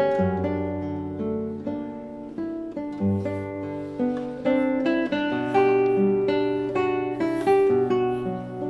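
Background music played on a plucked string instrument, a melody of single notes that start sharply and ring out.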